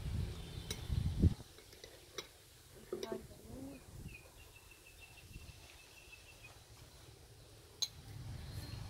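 A metal spoon clinking lightly against a plate a few times, with a low thump about a second in.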